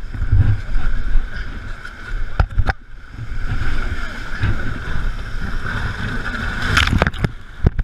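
Whitewater rapids rushing against an inflatable raft, with a low rumble of wind and water buffeting the microphone and a few sharp knocks. Near the end a wave breaks over the raft's tube in a loud surge of splashing as the raft tips up to flip.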